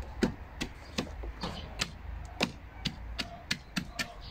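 Sharp tapping, about three taps a second, from work on a freshly set wooden post.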